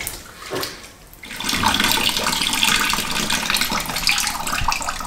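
Liquid left inside a car radiator pouring out of it into a plastic bucket as the radiator is held upside down, a steady splashing stream that starts about a second in. The trapped liquid is why the radiator felt so heavy.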